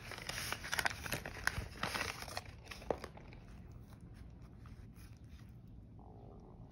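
A thin paper food bag crinkling and rustling as a hand peels it back from a sandwich. The crackling dies down about three seconds in.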